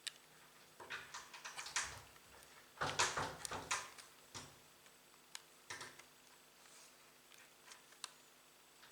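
Small plastic and metal laptop parts being handled and worked on. A run of clicks and scrapes comes about a second in, a louder rattling scrape around three seconds in, then scattered single clicks.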